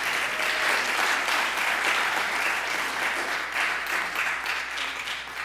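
Audience applauding: dense, steady clapping that begins to ease off near the end.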